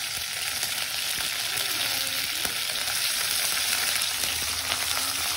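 Chopped ginger, curry leaves and dried red chillies sizzling in hot mustard oil in a non-stick kadai as they are stirred with a spatula: a steady sizzle with fine crackle.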